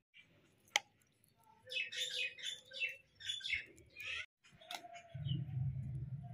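Birds chirping in quick runs, with a sharp click just under a second in and a steady low hum coming in about five seconds in.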